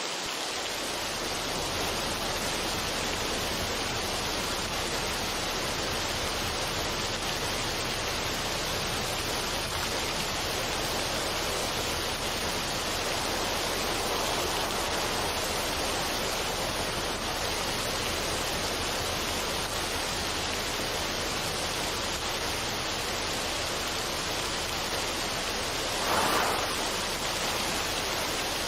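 Steady, even rushing noise of a relaxation ambience track, with a brief louder swell near the end.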